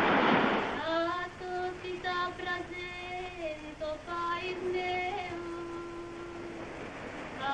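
A single high voice singing long, wordless held notes that slide between pitches, beginning about a second in, just after a short rushing noise dies away.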